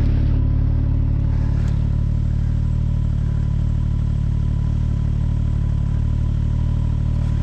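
Snowmobile engine running at a steady speed, its pitch holding even throughout.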